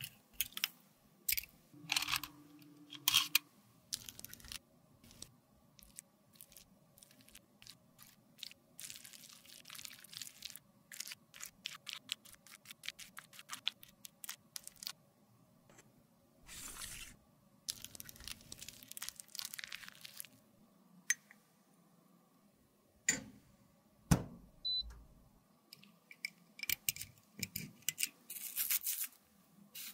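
Close-miked crackling, scraping and clicking of dry lipstick product being picked and crumbled in a metal lipstick case with a thin pick and tweezers. Small taps of the tools and case come throughout, and there are two sharp knocks about three quarters of the way through, the second the loudest.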